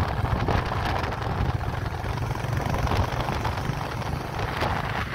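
Motorcycle under way on the road: a steady low engine rumble mixed with wind noise over the microphone.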